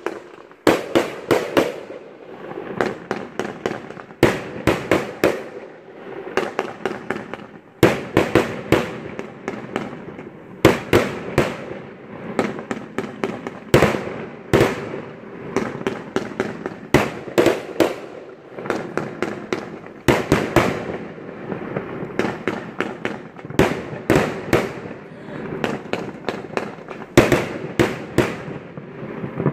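Fireworks going off in rapid volleys of sharp bangs, cluster after cluster every few seconds, with crackling between them.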